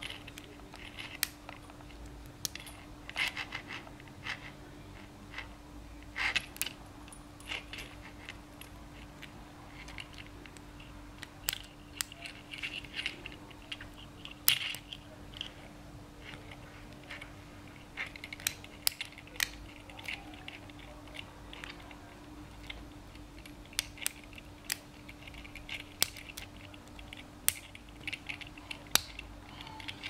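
Lock pick and tension tool working the pin-tumbler keyway of a Titan K padlock that has security pins: irregular sharp metallic clicks and short scraping rasps as the pick works the pins.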